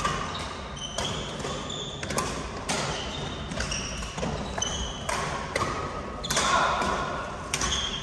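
Badminton rally: sharp racket strikes on the shuttlecock about once a second, echoing in a large hall, with short high squeaks of court shoes on the floor between them.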